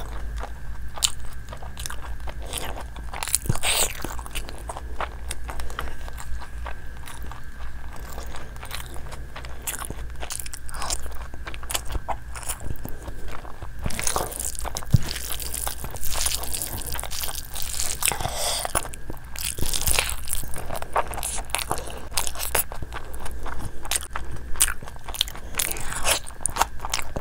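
Close-miked chewing and biting of spicy chicken and fried rice eaten by hand, with many short crunches and clicks.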